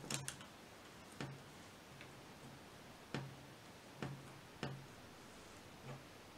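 Light, sharp clicks and taps of hands handling a water-filled plastic bottle, about six at uneven intervals, as a mesh net is fixed over its mouth with a rubber band and the bottle is gripped.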